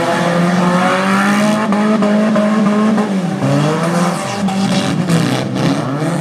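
Several race cars' engines revving hard on a dirt figure-8 track. Their pitches overlap and rise and fall as the cars accelerate and slow.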